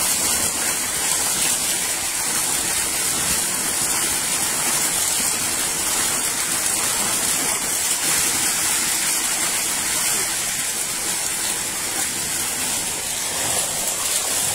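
Heavy jet of tubewell water gushing from an outlet pipe and splashing into a full concrete tank, a steady, loud rush of water.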